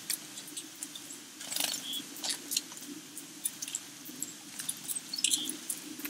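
Small backyard birds: rapid scattered clicks and taps, with a short high chirp about two seconds in and another, louder, near the end.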